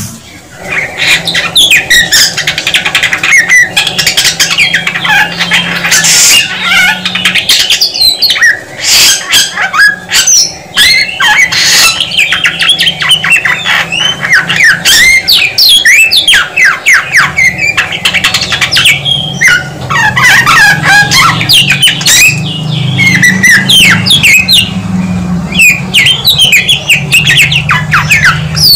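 Samyong (Chinese hwamei) singing a loud, unbroken song of quick, ever-changing whistled and chirping phrases, many sweeping down in pitch.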